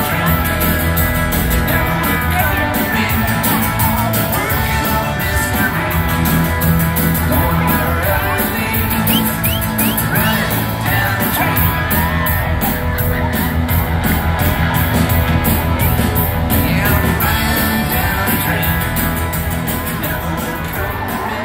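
Live rock band playing with singing, loud and continuous, with a steady beat.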